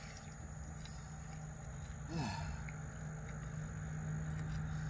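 A vehicle's engine running as a steady low hum, slowly getting louder, with a short falling sound about two seconds in.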